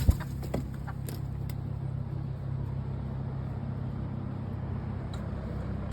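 A steady low mechanical hum, with a few light clicks and knocks in the first second and a half.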